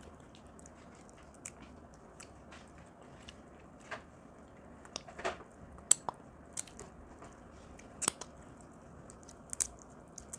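Crab shell being cracked and broken apart by hand and teeth while eating, with chewing: a dozen or so short, sharp cracks and snaps at uneven intervals, the loudest about six and eight seconds in.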